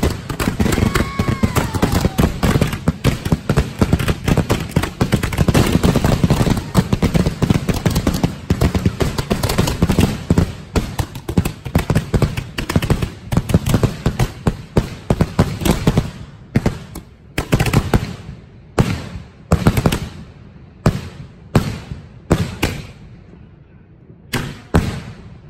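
A fireworks finale of 2.5-inch salute shells going off in a rapid barrage of sharp bangs. For about sixteen seconds the bangs run almost together, then they thin out to separate reports a fraction of a second apart. There is a short lull near the end before a few more bangs.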